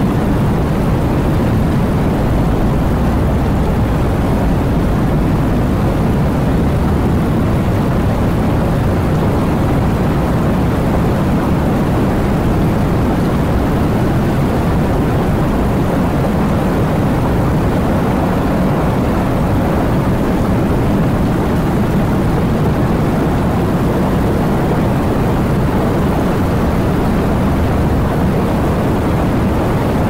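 Steady heavy rain: a dense, even rushing noise weighted toward the low end, with no single drops standing out.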